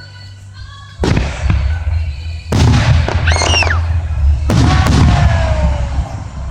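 Aerial fireworks bursting: three booms, about a second in, two and a half seconds in and four and a half seconds in, each trailing off in crackle.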